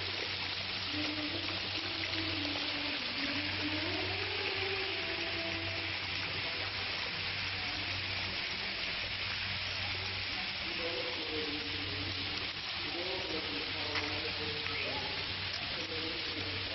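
Steady hiss of water splashing down a rock face into a pool, with faint distant voices.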